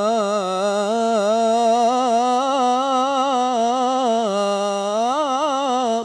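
A male qari reciting the Quran in the melodic tilawah style, holding one long drawn-out note on the word al-Jabbār. The pitch wavers gently throughout, with a quick ornamented run near the end, amplified through a handheld microphone.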